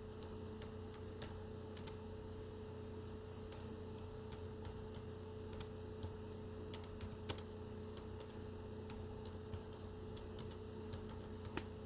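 Faint, irregular typing on a computer keyboard: a loose string of light key clicks as a new folder name is typed, over a steady low electrical hum.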